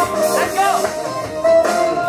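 Dance music playing loud for a waacking battle: a beat under a gliding melody line.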